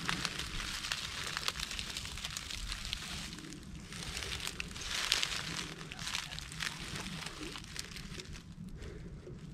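Footsteps crunching and rustling through dry fallen leaves at a walking pace, loudest about five seconds in.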